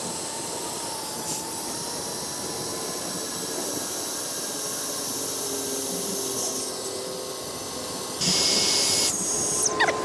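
Small electric air pump running steadily as it inflates an air mattress, with a faint whine in its note. It grows louder near the end.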